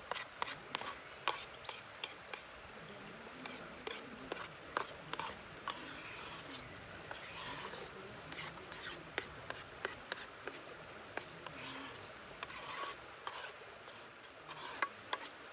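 Utensil scraping and tapping against cookware: irregular sharp clicks, with longer rasping scrapes about halfway through and again later on.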